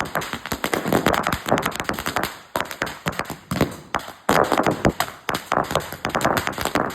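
A 5000-wala string of firecrackers going off in a rapid, continuous volley of sharp bangs, with brief lulls about two and a half and four seconds in.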